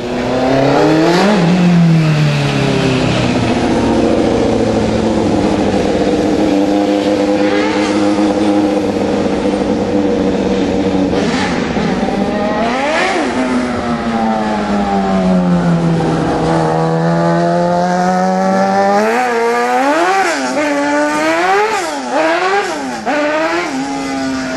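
Race car engines running hard at high revs, the pitch rising and falling through gear changes and as the cars pass. Near the end one engine revs up and drops again several times in quick succession.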